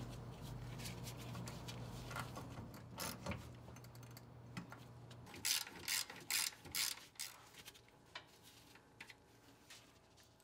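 Hand ratchet working bolts, heard as a few scattered clicks and then a quick run of about five short ratcheting strokes a little past halfway. A faint low hum sits under the first half.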